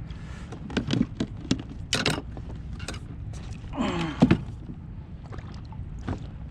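Scattered knocks and clicks of gear being handled on a fishing kayak, over a steady bed of wind and water noise. A short sliding tone and a louder knock come about four seconds in.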